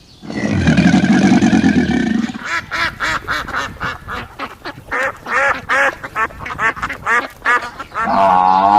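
Farm poultry calling: a quick series of short, sharp calls, two or three a second, after a lower, rougher animal call in the first two seconds. A long, drawn-out animal call starts near the end.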